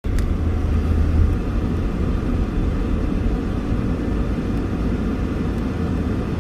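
Steady low rumble of a moving vehicle: engine and road noise.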